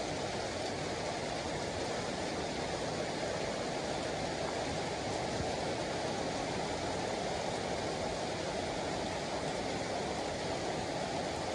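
Steady rain falling on a paved street, puddles and foliage, an even wash of noise with no breaks.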